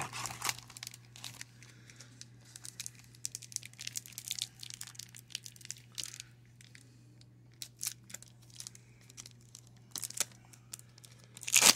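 Foil baseball card pack wrapper crinkling and tearing in irregular bursts of crackles, over a steady low hum.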